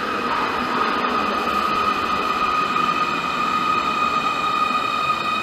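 Munich U-Bahn train pulling into an underground station: the rumble of wheels on rail with a steady high whine running through it, growing a little louder as the train comes alongside the platform.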